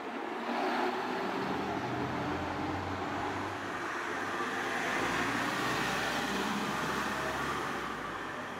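City bus running past along the street and pulling away, a steady low engine rumble with road noise that eases slightly near the end.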